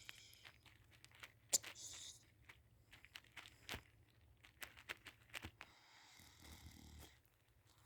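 Near silence with a faint low hum, broken by scattered small clicks and rustles; the sharpest click comes about one and a half seconds in.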